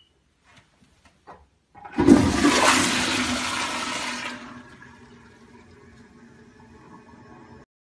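Toilet flushing. A few faint clicks come first, then about two seconds in the flush rushes in suddenly and loudly. After a couple of seconds it settles into a quieter, steady running of the refill, which stops short near the end.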